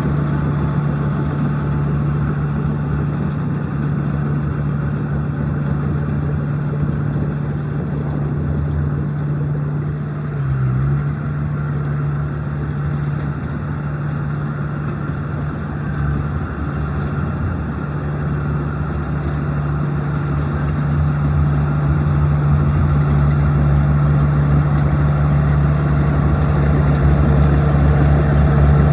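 Bulldozer's diesel engine running steadily, growing louder over the last third.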